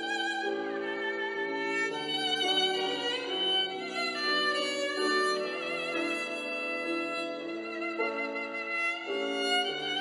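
Slow instrumental background music led by a violin, its held notes wavering with vibrato over sustained lower accompanying notes.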